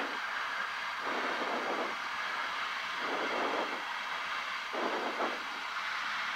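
Steady cockpit hiss of a gliding Cessna 172 heard through the headset intercom, with the pilot's breathing into his headset microphone coming through as a soft rush three times, about every second and a half: fast, stressed breathing on short final.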